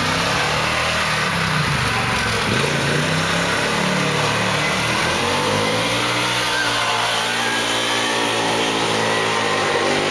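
Arctic Cat Wildcat 1000X side-by-side's V-twin engine running as it drives around, the engine note rising and falling with the throttle through the first half, then holding steadier.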